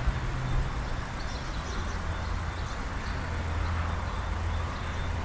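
A steady low mechanical hum under a haze of outdoor background noise, with a few faint high chirps now and then.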